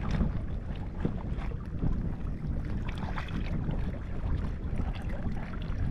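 Wind rumbling on the microphone aboard a small fishing boat, with water lapping against the hull and a few light knocks.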